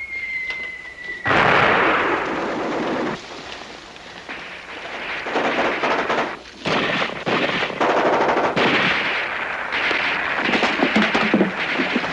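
Machine-gun and rifle fire in a staged battle soundtrack, in rapid bursts throughout. A thin, slightly falling whistle in the first second is cut off by a sudden loud burst.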